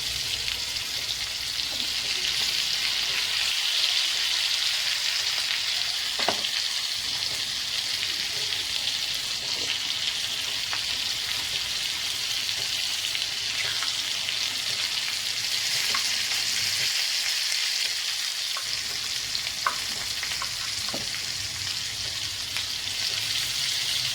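Crab pieces shallow-frying in hot oil in a pan: a steady sizzle, with a few brief clicks scattered through it.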